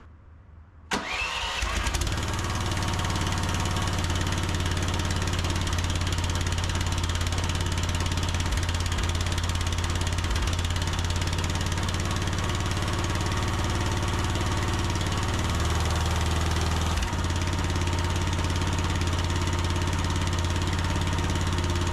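A mini excavator's small gasoline engine catching on a cold start in near-freezing air about a second in, then running steadily.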